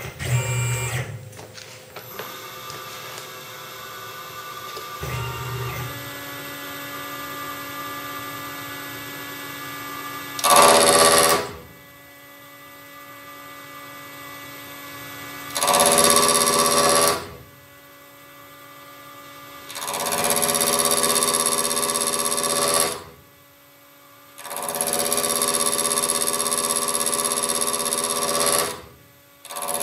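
CNC mill spindle spinning a 2-inch face mill, ringing with several steady tones. Four times it grows much louder as the cutter takes passes across the lock tang of a hardened RWL-34 stainless blade. The passes are short at first and longer near the end.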